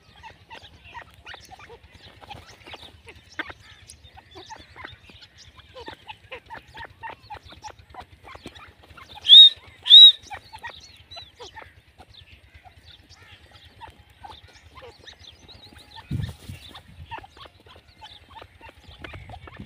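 Grey francolin giving two loud, high calls about half a second apart near the middle, among many faint, quick ticking notes. A low thump comes near the end.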